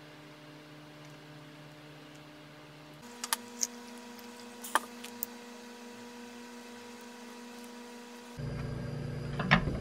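Quiet indoor room tone with a steady low electrical hum, broken by a few short soft clicks and taps about three to five seconds in. Near the end a louder low rumble comes in.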